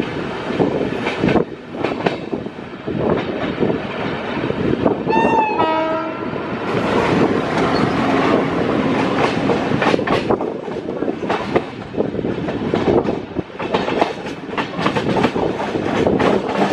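WDM-3D diesel locomotive running light past at close range: a steady engine rumble, a short horn blast about five seconds in, then its wheels clattering rapidly over rail joints.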